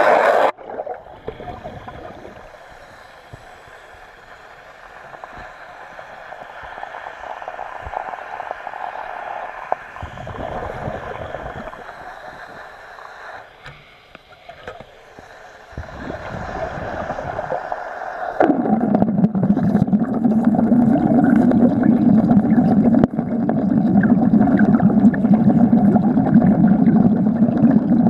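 Underwater wet arc welding on a steel plate. The arc stops about half a second in, leaving a much quieter stretch. It strikes again roughly two-thirds of the way through and then runs loud and steady.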